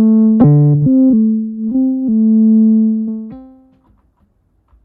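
Eurorack-style P_4L II Max for Live software synthesizer playing a phrase of about six sustained notes, each starting sharply. The last note fades out about four seconds in.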